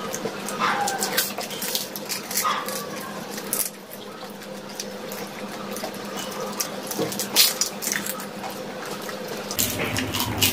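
Doi fuchka (dahi puri) being eaten: crisp puri shells filled with yogurt crunching, with wet, squishy chewing. Sharp little crunches come often and irregularly.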